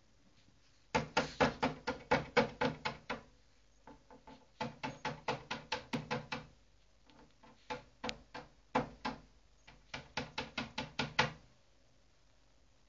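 A parrot tapping its beak against a computer monitor: fast runs of sharp knocks, about six a second, in four bursts with short pauses, the first burst the loudest.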